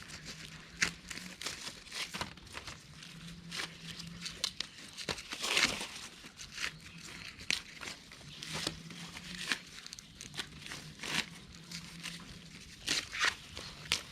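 Dry corn leaves and husks rustling and crackling irregularly as corn is picked by hand, with the longest, loudest rustle about five and a half seconds in.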